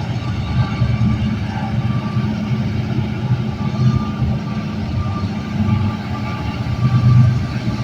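Diesel locomotive engine running, a steady low rumble that swells slightly near the end; no horn sounds.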